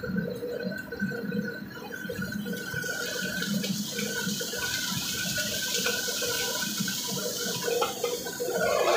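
Commercial gas wok burner running under a wok of hot oil and sauce, with a steady sizzling hiss that grows louder from about three seconds in.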